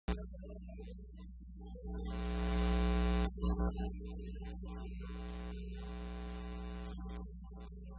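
Steady electrical mains hum from the sound system. A harsh buzz swells for about a second, then cuts back, with a few knocks as equipment on the lectern is handled.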